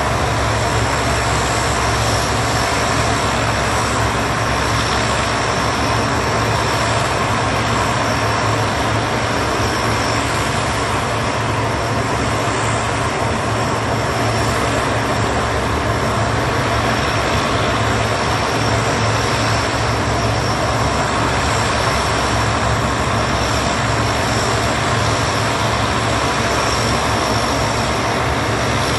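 Four-blade C-130 Hercules transport's Allison T56 turboprop engines running steadily at ground idle: a constant low drone under a high turbine whine.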